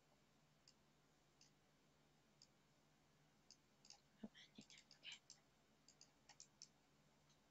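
Faint computer mouse clicks: a few single clicks spaced out, then a quick run of clicks around the middle, over a faint steady low hum.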